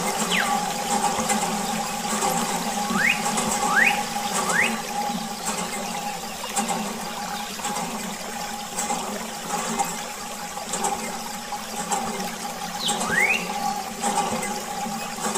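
A thin jet of water spraying and splashing onto a toy tractor, over a steady hum. A few short rising squeaks sound, three in quick succession about three to five seconds in and one more near the end.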